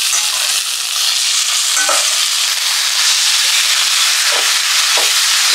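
Onion-and-spice masala frying in a non-stick pan, a steady sizzle, as a lump of raw fish roe is stirred in with a wooden spatula, with a few brief spatula scrapes.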